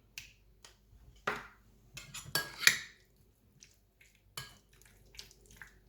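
A metal utensil clinking and scraping against a bowl in irregular taps while chicken is stirred into crème fraîche.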